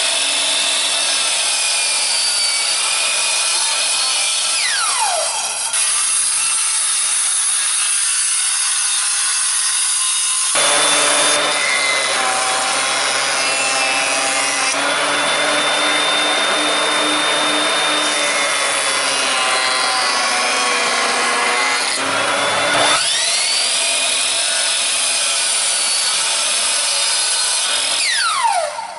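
Sliding compound miter saw crosscutting wooden boards: the blade winds up with a rising whine, cuts, and winds down with a falling whine about five seconds in and again just before the end. In the middle, a benchtop jointer runs steadily as a board edge is fed across its cutter.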